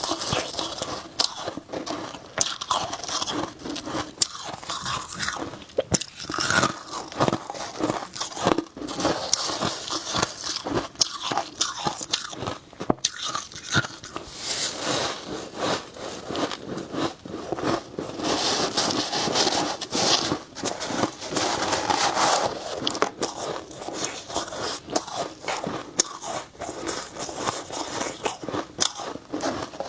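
Person biting and chewing humidifier frost, with many dense, irregular crunches and crackles.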